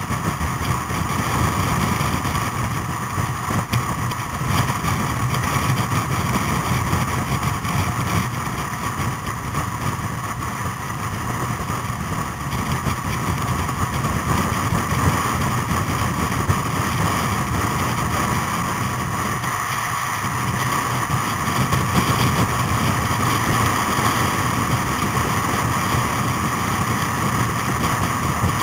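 Vintage motorcycle engine running steadily at road speed, heard from on board, with wind noise over the microphone.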